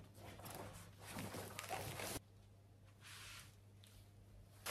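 Faint room tone with a steady low hum and a few soft rustles; the sound drops abruptly to near silence a little after two seconds in.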